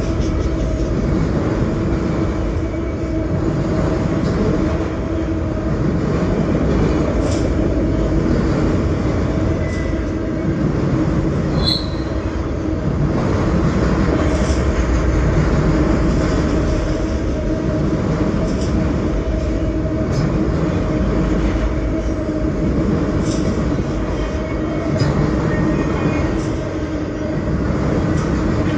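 Freight train of enclosed autorack cars rolling past: a steady rumble of steel wheels on rail with a constant hum and occasional clicks from wheels crossing rail joints.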